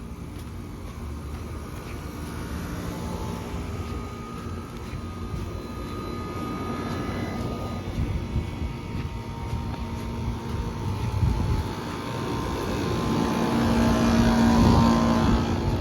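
Outdoor air-conditioner condenser units running with a steady fan and compressor hum, growing louder toward the end, with wind rumbling on the microphone.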